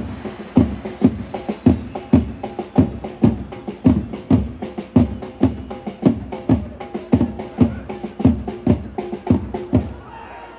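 A supporters' drum in a stadium crowd beating a steady rhythm of heavy strikes, about two a second, over the noise of the crowd. The drumming stops about ten seconds in.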